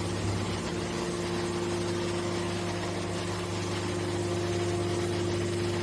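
Hydraulic scrap metal baler's motor and pump running with a steady, even hum.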